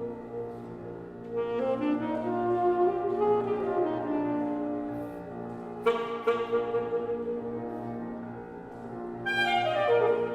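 Alto saxophone and piano playing classical chamber music: held and gliding saxophone notes, with sharp new entries about six and nine seconds in.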